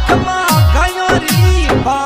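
Instrumental break in a Rajasthani devotional folk song: deep drum hits that drop in pitch, about two a second, under a sliding melody line.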